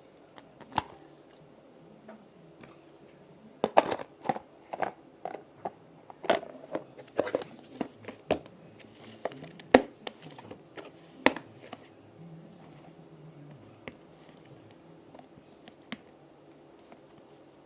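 Slime being squeezed and worked in the hands, making sharp sticky clicks and pops: one about a second in, then a quick run of them for several seconds.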